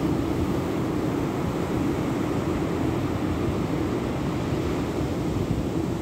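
Steady roar of surf breaking on a sandy beach, heavy in the low end, with wind rumbling on the microphone.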